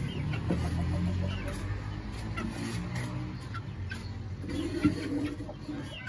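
Two-month-old Aseel chickens giving short, scattered peeps and soft clucks, over a steady low background rumble. A single sharp tap sounds about five seconds in.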